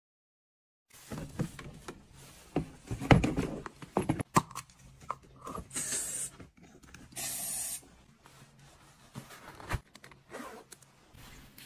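Knocks and rustling as leather boots are handled, then two short hisses of a spray sprayed into a boot to freshen it, about a second and a half apart.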